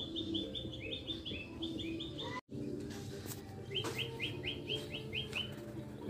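Small wild songbird calling in quick series of short, high, repeated chirps, about five a second, in two bouts with a pause in between. A steady low hum runs underneath, and the sound drops out for a split second about halfway through.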